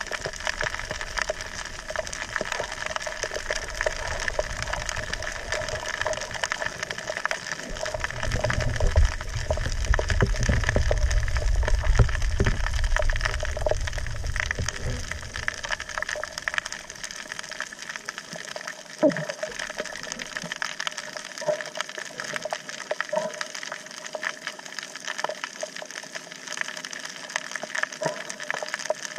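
Underwater sound over a coral reef as picked up by an action camera: a steady water hiss with many small crackling clicks. From about 8 to 16 seconds in, a low rumbling surge of water moving around the camera rises over it, then fades.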